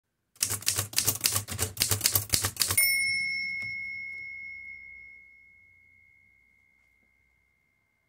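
Manual typewriter typing a quick run of about ten key strikes, then a single bell ding that rings on and slowly fades away.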